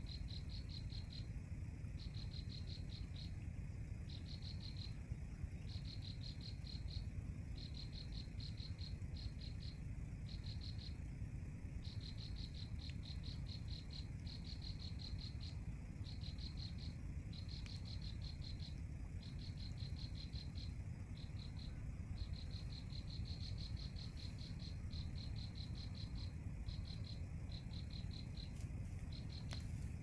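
A cricket-like insect trilling high in rapid pulses, in runs of one to a few seconds broken by short pauses, over a steady low rumble.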